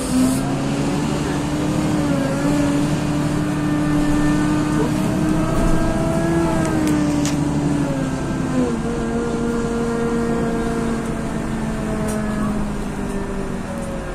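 Tezeller TezAuto LF1200 city bus engine heard from inside the passenger cabin, pulling away and accelerating. Its pitch climbs steadily, then drops twice, about seven and nine seconds in, as the gearbox changes up. A short hiss comes right at the start.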